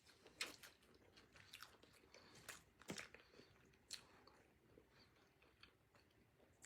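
Quiet close-up chewing of a mouthful of cheeseburger, with irregular wet smacks and crunches; the sharpest come about three and four seconds in.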